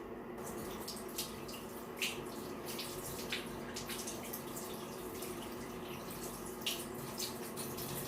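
Water running from a sink tap onto hands being washed, starting about half a second in, with a few sharper splashes along the way.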